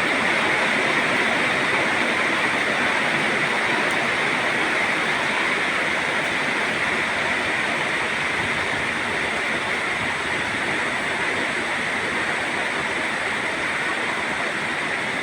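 Steady downpour of rain: a dense, even hiss that holds at the same level throughout, with no distinct drops or thunder.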